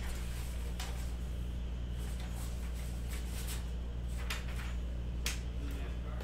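A sheet of printer paper rustling as it is handled, in a few short swishes, over a steady low hum.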